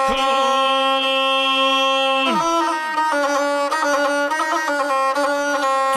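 Gusle, the single-string bowed Balkan folk fiddle, playing alone between sung verses. It holds one long note for about two seconds, slides down, then runs through quick ornamented notes.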